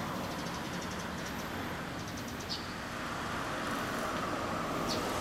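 Vehicle noise: a steady engine hum with road noise, and a passing vehicle growing louder over the last two seconds.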